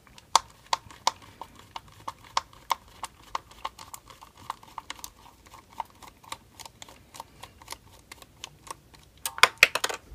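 Precision screwdriver backing a small screw out of the motor cover of a Traxxas Stampede, giving a regular light click about three times a second. A quick run of louder clicks comes near the end.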